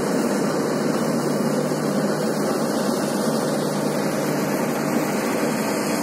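Combine harvester running steadily while cutting wheat: a constant mechanical drone with a faint low hum underneath.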